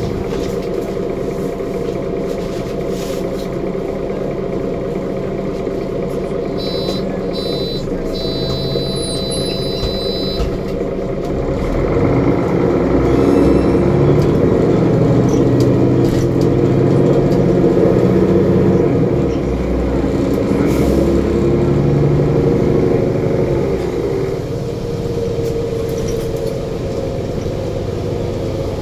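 Mercedes OM457LA straight-six diesel of a Conecto G articulated bus, heard from inside the cabin. It runs steadily while a short run of high electronic beeps sounds about seven to ten seconds in. About twelve seconds in it gets much louder in a full-throttle kickdown through the Voith four-speed automatic as the bus accelerates hard, then eases off around twenty-four seconds.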